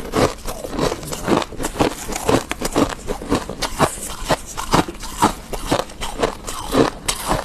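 Freezer frost being chewed close to the microphone: a steady run of crisp, squeaky crunches, about two a second.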